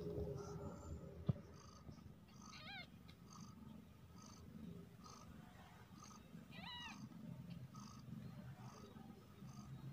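Mother cat purring softly, with a newborn kitten giving two short high mews, about three seconds in and again near seven seconds.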